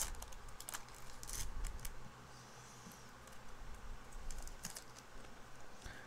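Foil wrapper of a Pokémon card booster pack crinkling as the cards are slid out of it and handled. It comes as a run of sharp crackles in the first couple of seconds and more a little past the middle.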